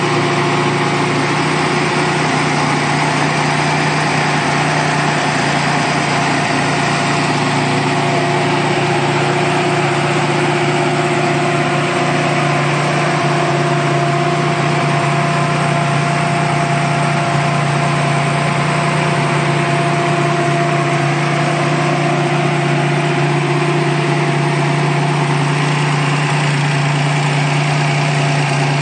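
Turbocharged Chevrolet Bowtie-block engine in a 1992 GMC Typhoon idling steadily, the engine speed holding constant throughout.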